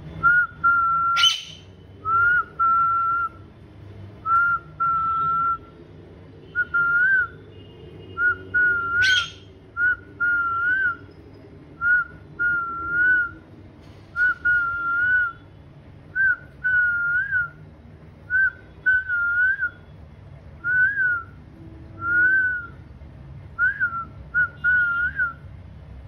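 Whistling: a long run of short notes at one steady pitch, many ending in a small upward flick, spaced in a rhythmic, tune-like pattern. Two sharp clicks cut in, one near the start and one about nine seconds in.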